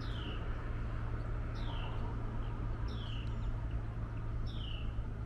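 A bird calling: a short, downward-sliding whistled note repeated about every second and a half, four times, over a steady low hum.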